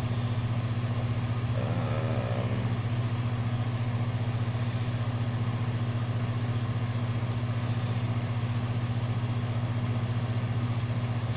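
Steady low mechanical hum that holds one unchanging pitch, with faint regular ticking above it.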